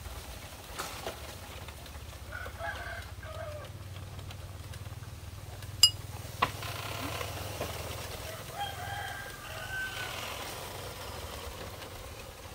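A rooster crowing twice, the second call longer and ending on a slight rise, with a sharp ringing clink a little before the middle and a smaller click just after it.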